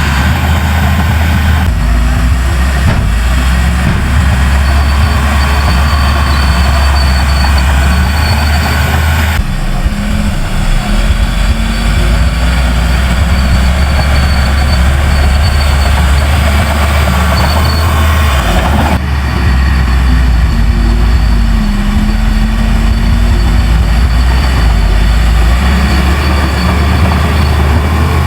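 Heavy earthmoving machinery running, a loud diesel engine drone with a deep low rumble. Its character changes abruptly about 2, 9 and 19 seconds in.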